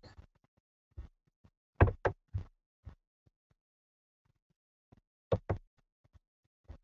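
Irregular knocks and thumps: a cluster of four or five around two seconds in, then a close pair a little after five seconds.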